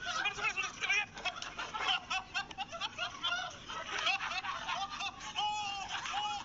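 Several men laughing and shrieking at once, overlapping high-pitched, wavy cackles and cries, with one longer held cry about five and a half seconds in.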